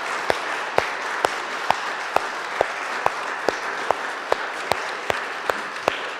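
A small congregation applauding in the pews. One clapper close to the microphone stands out with sharp, evenly spaced claps about two a second.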